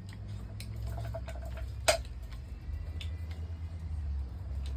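Hand crimping tool being worked to crimp a terminal onto a wire: a series of irregular sharp clicks, with one louder click about two seconds in as the dies close on the terminal.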